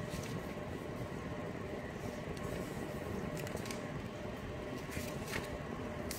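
Steady background noise with faint constant tones and a few faint clicks.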